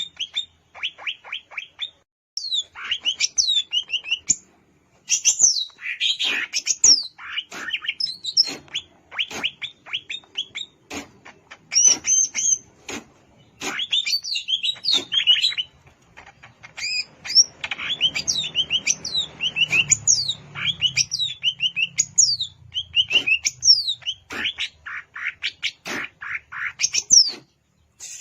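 Cucak ijo (green leafbird) singing: a fast, varied stream of chirps and downward-sweeping whistles, broken by a few short pauses.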